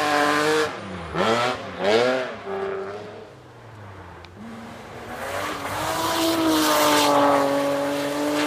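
Rally car engines at high revs on a gravel stage. One engine holding high revs breaks off about a second in. Another swoops up and down in pitch twice in quick succession. After a quieter spell, a third engine climbs and holds a high, steady note over a hiss of tyres on gravel.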